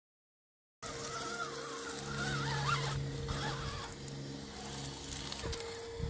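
Whine of a Redcat Gen7 Pro 1/10-scale RC rock crawler's electric motor and gear drivetrain as it crawls slowly over rocks, its tones changing as the throttle is worked, with a sharp click about five and a half seconds in. The sound cuts in suddenly just under a second in.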